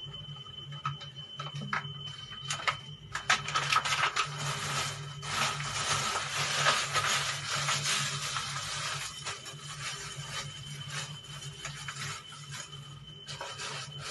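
Crinkling of a plastic bag and knocks and scrapes against a plastic bowl during food preparation, densest from about three to nine seconds in, over a steady low hum.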